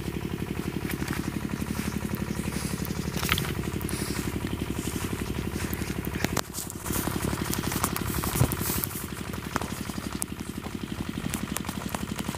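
Stationary pump engine running steadily with a rapid, even khat-khat knocking beat. A few brief clicks of handling sound over it.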